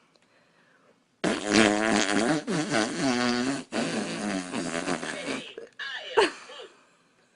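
A long, wavering fart lasting about four seconds, starting about a second in, followed a moment later by a short, sharp sound that drops in pitch.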